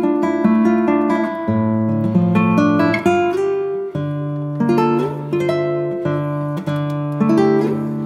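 Background music: an acoustic guitar playing plucked notes and chords.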